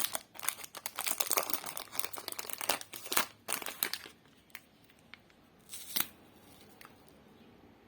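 Plastic lollipop wrapper crinkling and tearing as it is handled, with dense crackling for about four seconds. Then come a few scattered crackles and one sharper one, about six seconds in.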